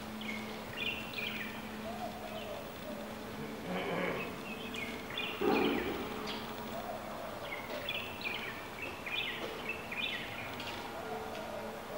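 Room ambience: a steady low hum under repeated short high chirps, with one brief louder, muffled sound about five and a half seconds in.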